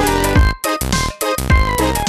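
Upbeat electronic background music with a steady beat of deep, dropping drum thumps and bright synthesizer notes.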